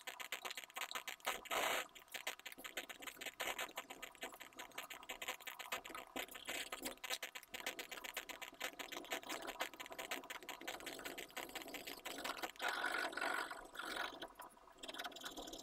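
Pencil scratching on drawing paper in quick, rapid shading strokes, a little louder about two seconds in and near the end.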